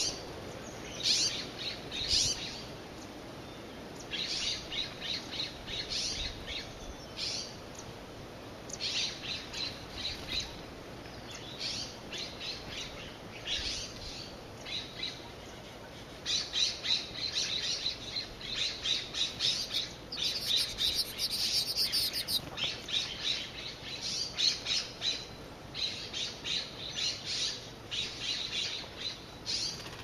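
Birds calling in short, rapid chattering bursts, repeated many times and busier in the second half.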